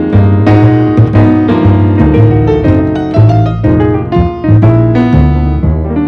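Background piano music: a run of struck piano notes over low sustained bass notes.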